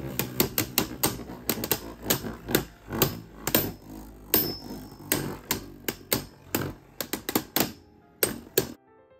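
Two Beyblade Burst spinning tops clashing in a plastic stadium: rapid, irregular sharp clicks and knocks, a few a second, over a low whir of spinning. The clicks cut off suddenly near the end and soft piano music begins.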